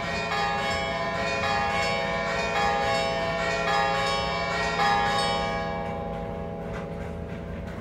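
Church bells ringing, several bells struck again and again in a peal, dying away toward the end.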